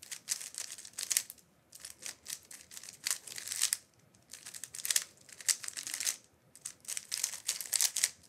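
DaYan GuHong Pro 3x3 speedcube, the 56 mm spring version, being turned rapidly through a timed solve: fast runs of clicking, rattling plastic layer turns, broken by three brief pauses.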